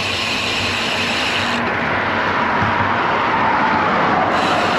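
Road traffic noise and wind rushing over the microphone while cycling along a highway shoulder; in the second half a vehicle passes, its tone falling in pitch.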